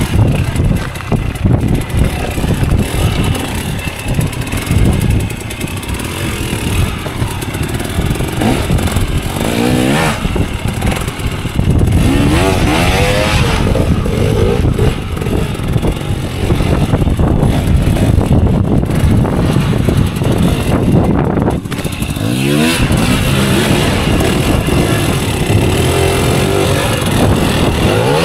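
Hard enduro dirt bike engine working on rough terrain, revving up in several rising sweeps as the rider goes on and off the throttle.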